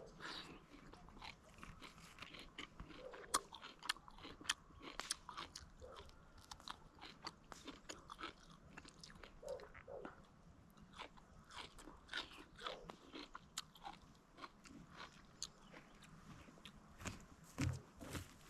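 Mouth sounds of someone biting and chewing tandoori chicken: soft, irregular crunches and wet chewing clicks, several a second.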